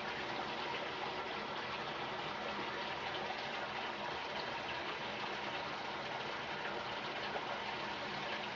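A steady rushing noise, even and unchanging, with no distinct strokes or knocks standing out.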